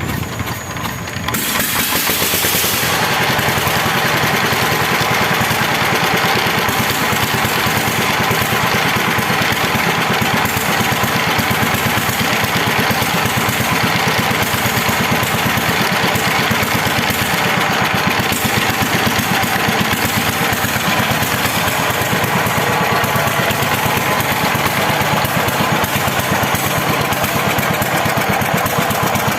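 KOYO 25HP single-cylinder diesel engine running on its test run after a cylinder-head rebuild, a fast, even knocking beat that picks up about two seconds in and then holds steady. The mechanic judges the injector nozzle setting not right.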